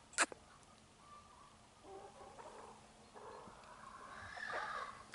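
Two sharp clicks right at the start, then a rooster crowing, the drawn-out call building over about three seconds and loudest near the end.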